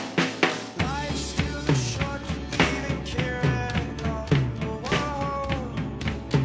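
Rock music played by a band: drum kit hits over gliding pitched parts, with a low bass coming in about a second in.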